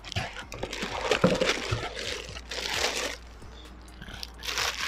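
Clear plastic wrapping crinkling as a wrapped saucepan is handled and lifted out of a cardboard box, with rustling from the box. The rustling goes in uneven bursts, pauses about three seconds in, and picks up again near the end.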